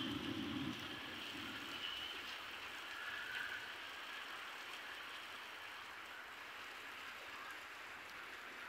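Steady monsoon rain falling, an even hiss, with a low rumble that stops about a second in.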